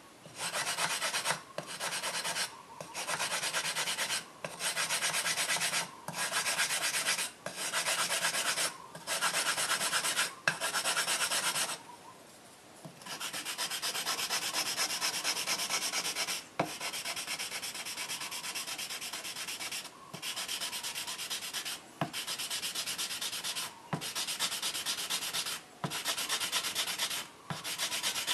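A wooden block rubbing a wet, coarse 120-grit abrasive powder slurry along a steel kitchen knife blade in long, straight strokes. It makes a gritty scraping roughly every one and a half seconds and pauses for about a second near the middle. This is the coarse stage of laying down straight whetstone-style scratch lines on the blade.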